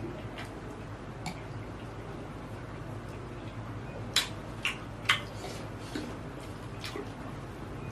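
Someone eating chicken satay: chewing with short wet mouth clicks, the three sharpest close together about four to five seconds in, over a steady low hum.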